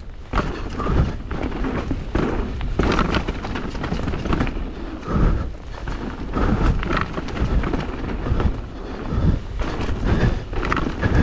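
Mountain bike descending a rough, muddy trail: tyres over the ground, the bike clattering and rattling over bumps and wind buffeting the helmet camera's microphone. Part of the rattle is the rider's mudguard, which he takes to have broken.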